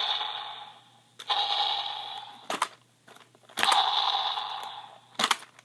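Toy T-Rex worked by its stomp button, going off three times: each time a noisy, fading burst lasting about a second, with sharp clicks in between.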